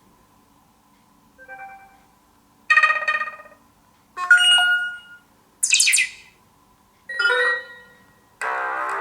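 BQ Aquaris 4 smartphone playing its built-in notification tones one after another through its speaker. Each is a short chime lasting about half a second to a second, a different melody each time, with brief pauses between them; one is much higher-pitched than the rest. A longer, fuller tone begins near the end.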